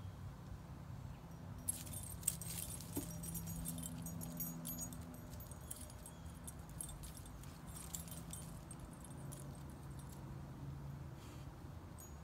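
A dachshund's collar tags jingle in quick, irregular runs as it digs and noses through dry leaves, with the leaves rustling. The jingling starts about a second and a half in and stops shortly before the end.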